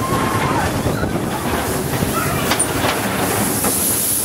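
Mine-train roller coaster cars rumbling and clattering steadily along their steel track, heard from a rider's seat.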